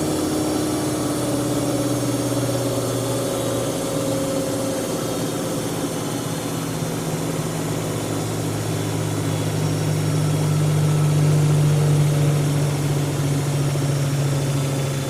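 Siemens Siwamat 7163 washing machine running with a steady motor hum. A higher whine slowly falls in pitch, and the hum grows a little louder about ten seconds in.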